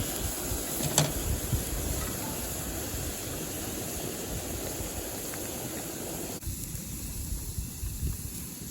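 Strong wind buffeting the microphone in gusts over a steady hiss, with one click about a second in. The higher hiss cuts off abruptly about six and a half seconds in.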